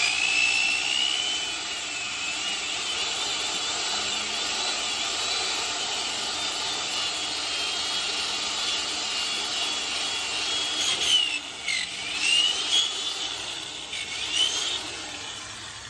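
Power drill spinning up and cutting holes, its whine wavering as the bit bites. Near the end the pitch dips and recovers several times as the bit loads up and frees.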